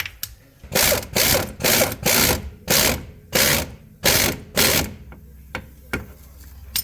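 Hand ratchet wrench clicking through about eight quick strokes, running in the hub assembly's mounting bolts, then a few single clicks near the end.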